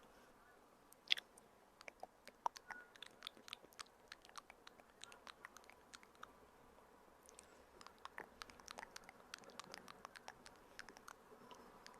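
Close-miked ASMR mouth sounds: a quick, uneven run of small wet clicks and smacks, the loudest about a second in.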